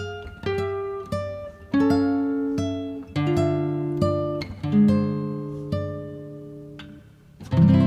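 Background music: a plucked guitar playing a slow line of single notes, each ringing and fading, with a louder chord struck near the end.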